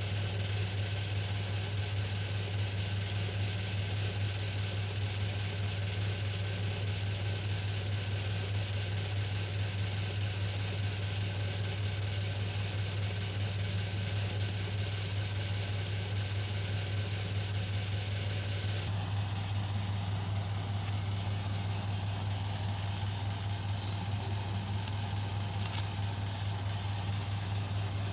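Steady low electrical hum that holds one pitch throughout, with a faint click near the end.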